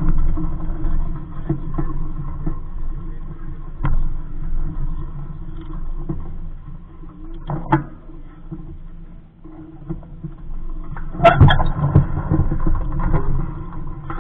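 Wind buffeting the microphone of a small sailboat, a loud uneven rumble, with a few sharp knocks and clatters of gear and rigging on the boat; the loudest clatter comes about eleven seconds in.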